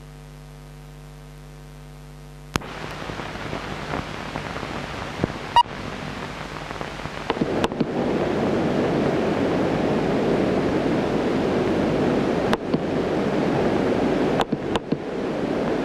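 Old film soundtrack with no speech or music: a steady electrical hum for the first couple of seconds, then a click and a steady hiss with scattered crackles and pops. The hiss grows louder about seven seconds in.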